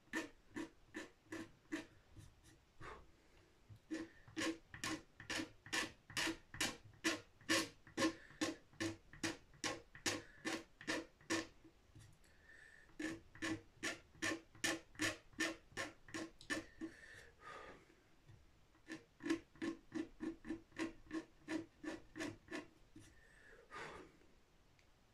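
Small steel scraper blade scraping built-up finish on a guitar headstock in quick, short, even strokes, about two or three a second, taking the finish down lightly to level it. The strokes pause briefly about halfway through and again about two thirds through.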